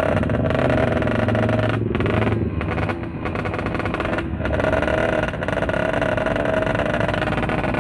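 Motorcycle engine running while riding, a steady drone whose pitch wavers a little around the middle.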